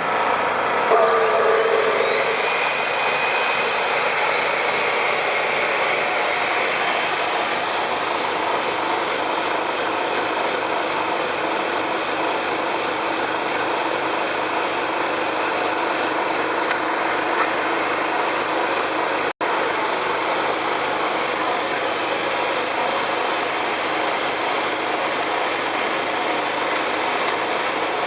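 Makita electric cut-off machine switched on about a second in, its motor winding up in pitch to a steady high whine, running on power from a 2000-watt Briggs & Stratton generator whose engine runs steadily under the load. The sound breaks off for an instant about two-thirds of the way through.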